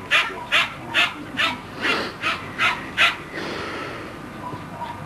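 A terrier barking in a quick run of about eight sharp barks, two or three a second, that stops about three seconds in.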